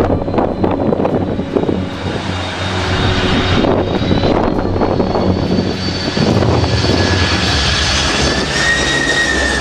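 Boeing 747 jet engines on a low landing approach, a whistling whine over a steady rush and wind on the microphone. The whine rises in pitch as the jet comes overhead, then bends down near the end as it passes.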